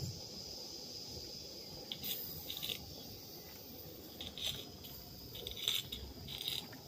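Garden-railway coaches rolling along the track, their wheels clicking and rattling on the rails at irregular moments over a faint steady high hiss.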